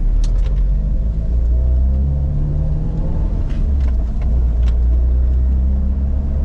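Car driving along a wet street, heard from inside the cabin: a steady low engine and road rumble whose pitch drifts slightly, with a few faint ticks.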